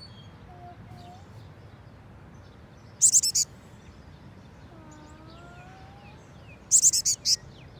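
A baby bird peeping: two quick bursts of several shrill, high-pitched chirps, about three seconds apart.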